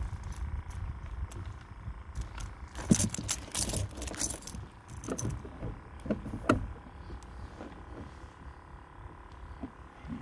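Scattered clicks, knocks and rattles of fishing gear being handled aboard a kayak, busiest about three to four and a half seconds in, with a sharp knock about six and a half seconds in.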